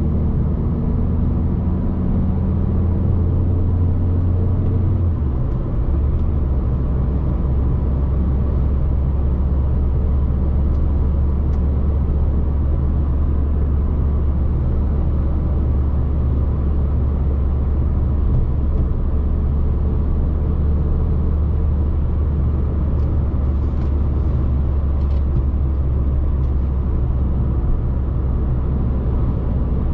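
Inside the cabin of a 2011 Alfa Romeo MiTo 1.3 JTDm, its four-cylinder turbodiesel drones low and steady over tyre and road noise while cruising. About five seconds in the drone drops to a lower pitch, as after an upshift, then holds.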